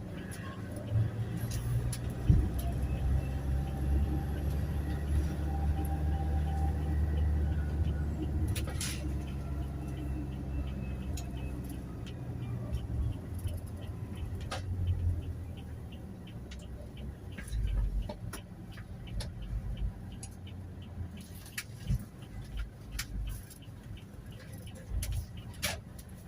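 Toyota Hiace Commuter van on the move, its engine and road rumble heard from inside the cabin. The rumble is heavy through the first half, then eases off as the van slows, leaving scattered clicks and a faint regular ticking.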